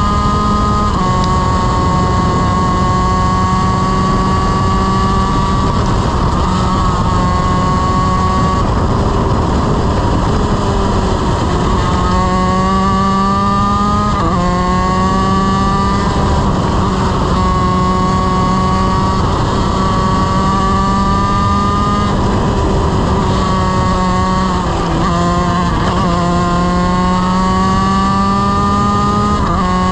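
Honda CR125 two-stroke single-cylinder shifter kart engine running hard at racing speed, heard onboard. Its pitch climbs through each gear and drops sharply at the upshifts, with quick dips and blips where it shifts down for corners around the middle and near the end.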